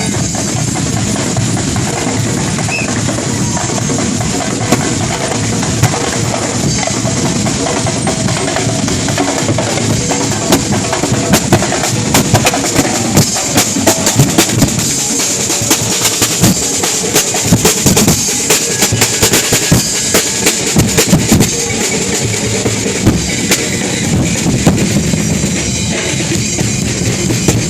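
Festival percussion band drumming: bass and snare drums beating loud and fast, with rolls and sharp hits that grow denser in the middle.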